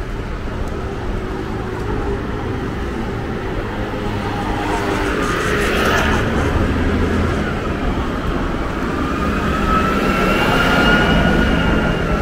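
City street traffic: a steady rumble of passing motor vehicles, swelling as one passes close about halfway through. A thin whine rises and falls over the last few seconds.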